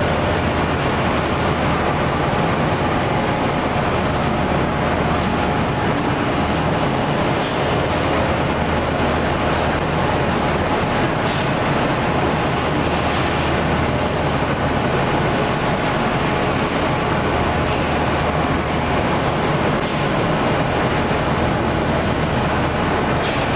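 YSTADT KMD 3150X4 CNC double-bending hydraulic folding machine running: a steady, even mechanical drone with a low hum underneath, and a few faint clicks scattered through.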